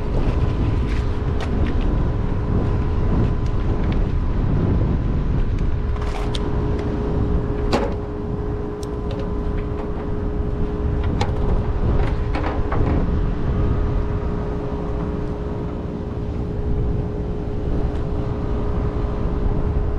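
Steady low drone of rooftop HVAC machinery running, with a constant hum. Several sharp clicks and taps of handling tools and metal panel parts come through it, the clearest about six, eight, eleven and twelve seconds in.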